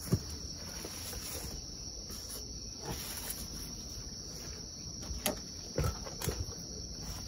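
Crickets chirring steadily in a continuous high-pitched band. A few short knocks and thumps come from the wooden side board of a raised garden bed being handled, the loudest of them about five to six seconds in.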